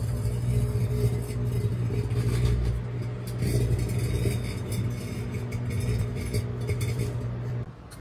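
Microwave oven running with its loud, steady electrical hum, overlaid by irregular crackling from metal arcing and burning inside. The hum briefly drops out near the end.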